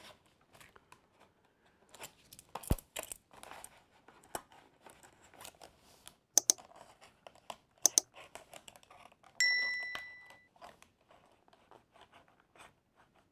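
Utility knife slitting the plastic blister of an action-figure card along its edge, making faint scratching and crinkling of the plastic. Two sharp clicks come around the middle, and a single chime rings out and fades a little later.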